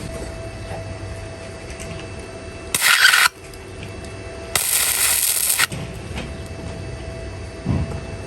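Flux-core welder laying two spot welds on a steel car sill: two bursts of crackling arc, the first about half a second long about three seconds in, the second about a second long a little later.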